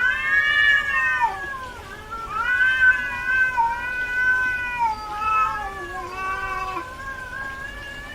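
Cat in heat yowling: long, drawn-out, wavering calls one after another, the loudest rising in pitch right at the start.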